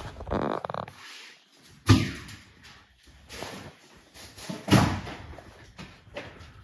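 A door banging twice, about three seconds apart, the second bang the louder.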